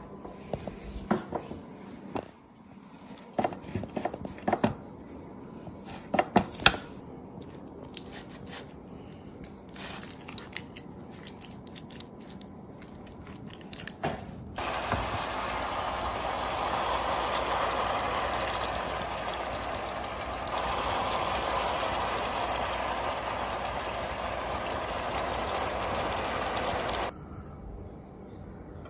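Sharp knocks and clicks of a knife scoring a raw lamb leg on a tray. About halfway through, a steady hissing, water-like noise takes over and cuts off suddenly near the end.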